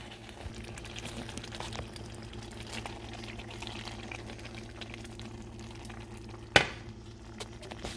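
Ground beef in thick salsa sauce bubbling and crackling in a stainless steel saucepan, over a faint steady hum. One sharp knock about six and a half seconds in.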